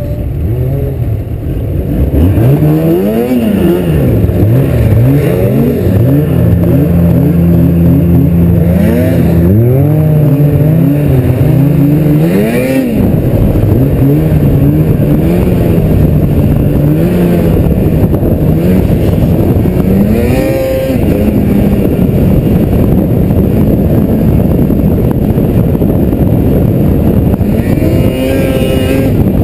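Snowmobile engines revving, their pitch climbing and falling again and again as the sleds speed up, slow and turn, with a steady rush of wind over the camera microphone.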